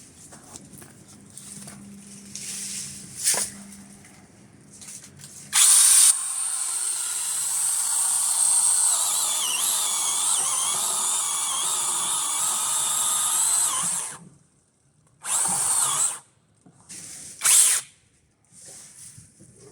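Nicelyon TPLC S07A battery chainsaw (brushless electric motor) starts about five seconds in and runs with a steady high whine for about eight seconds, its pitch wavering as it cuts into the wood. It stops, then gives two short bursts a second or two apart.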